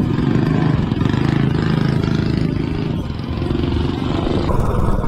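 Small four-stroke single-cylinder engine of a modified Coleman mini bike with a header pipe, running steadily. Its note shifts slightly about three seconds in.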